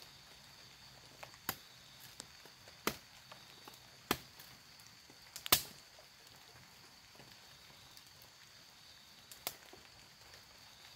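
About five sharp chopping strikes on sticks of firewood, irregularly spaced, the one about five and a half seconds in the loudest, over a steady high-pitched drone of night insects.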